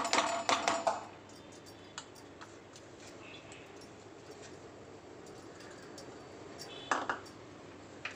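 Washed sago pearls tipped from a small ceramic bowl into a stainless-steel bowl, clattering and clinking for about a second. A single short clink or knock comes near the end.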